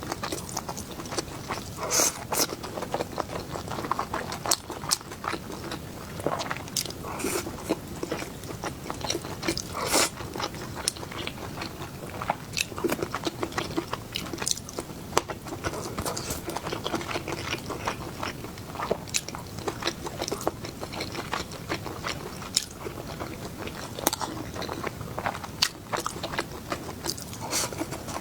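A person biting and chewing sweet-and-sour fried food close to the microphone, with many irregular sharp bites and mouth clicks.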